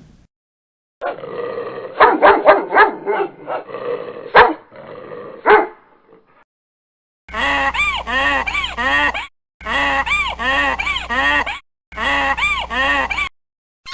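A dog barking in a quick irregular run. After a short pause, an animal gives three bouts of short, rapidly repeated calls, each rising and falling in pitch, over a steady low hum.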